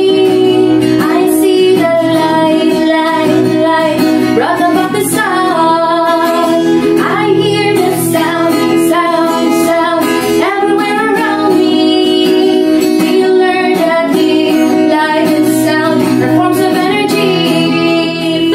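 A woman singing a children's song about heat, light and sound, with lines like "I hear the sound, sound, sound everywhere around me", to strummed acoustic guitar.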